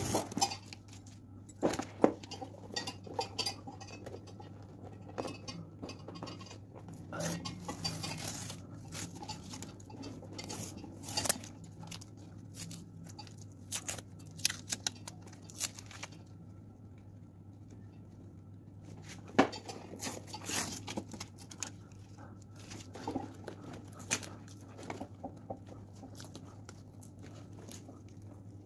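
Irregular light clicks, taps and clinks of small hard objects being handled on a work surface, sometimes in quick runs, over a steady low hum.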